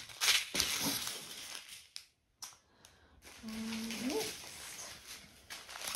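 Small plastic zip-lock bags of diamond-painting resin drills rustling and crinkling as they are handled, in two stretches with a short pause between. About four seconds in, a brief low hum slides upward in pitch.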